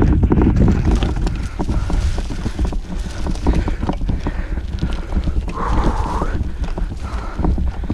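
Mountain bike rattling and knocking over a rough dirt trail, with a steady low rumble and wind on the action camera's microphone. A brief higher-pitched sound comes in about six seconds in.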